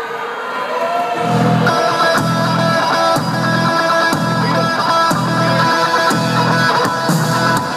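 Rock music with electric guitar played over an arena's speakers, with a low pulsing beat about once a second that comes in about a second in.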